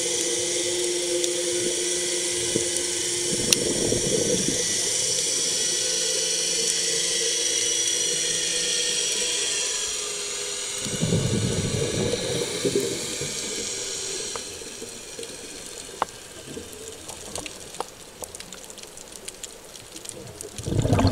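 Underwater sound picked up by a diver's camera: a steady hiss with a faint hum. About eleven seconds in comes a rush of bubbling, likely the diver's exhaled breath, and then the hiss gets quieter. A short, loud rush comes at the very end.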